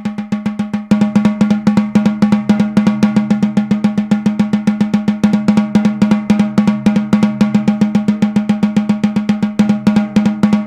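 Snare drum with the snares on, played as a fast, even stream of sticked sixteenth notes, a single- and double-stroke roll exercise. The strokes get louder about a second in, and the drum rings with a steady low tone under them.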